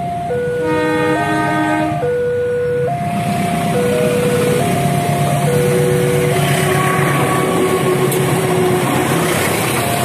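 Railway level-crossing warning alarm sounding an alternating two-note ding-dong, each note held just under a second. A CC 203 diesel-electric locomotive hauling a passenger train comes up and passes, its engine rumble and wheel noise growing from about three seconds in until they nearly drown the alarm.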